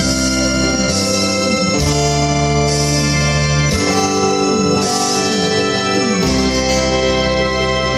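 Instrumental music led by organ-like electronic keyboard chords, held and changing every second or two, with a gliding melody line in the middle.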